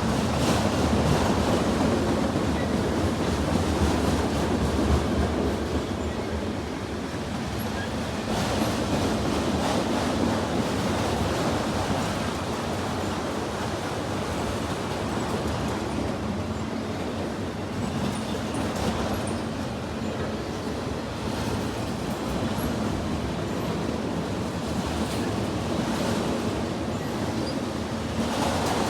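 Freight cars of a long CSX mixed freight train rolling past at speed: a steady rumble of steel wheels on the rails, with a few faint clicks.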